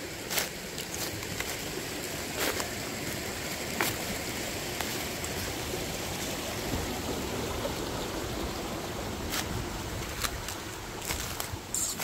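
Mountain stream running steadily, with scattered sharp crackles of footsteps on dry leaf litter and twigs.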